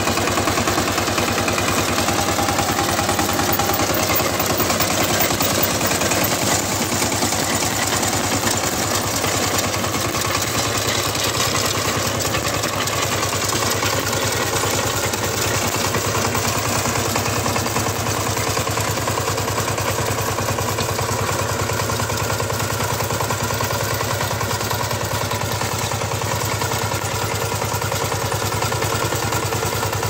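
Single-cylinder Changchai diesel engine of a two-wheel power tiller running steadily under load as it pulls a potato harvester through the soil, with metallic clatter from the digger's chain conveyor.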